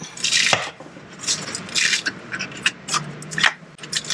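A hand tool scraping and prying against a pickup's inner fender liner and fender sheet metal: about half a dozen short, rasping scrapes, with a sharp knock about half a second in and another near the end.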